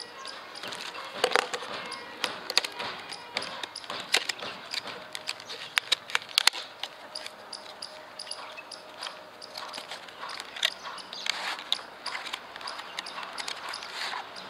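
A small cardboard product box being opened by hand: tape pulled from a flap, then rustling, crackling and sharp irregular clicks as the card and the plastic packaging inside are handled.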